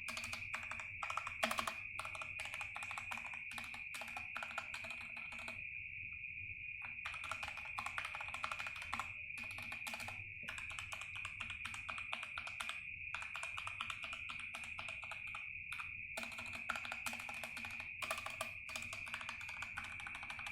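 Keys of a Skyloong SK61 mechanical keyboard with Gateron Red linear switches being pressed in rapid succession, a quiet, dense clatter with a brief pause about six seconds in. A steady high-pitched whine runs underneath.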